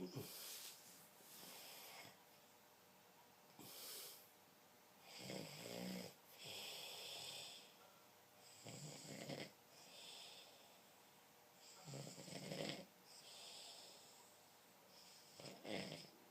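Snoring at a steady pace, a breath about every three and a half seconds: each a low rattling snore on the in-breath followed by an airy, hissing out-breath.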